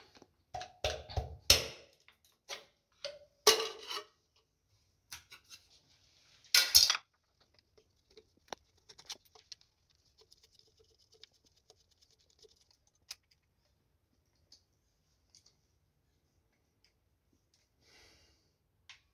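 A screwdriver and metal switch parts clicking and clattering as a wall light switch's cover plate is unscrewed and taken off and the switch is unscrewed from its box: a few sharp knocks in the first seven seconds, then a fine rapid ticking of the screwdriver working a screw, and scattered light clicks.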